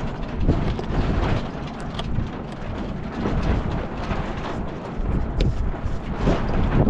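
Wind buffeting the microphone in an uneven low rumble that rises and falls with the gusts, with a few light knocks and clinks.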